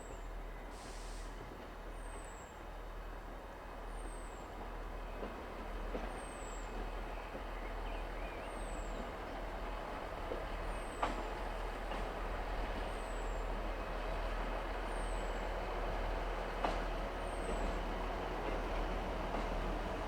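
A train running through a station, its noise slowly building, with a faint high chirp repeating about once a second and a few light knocks.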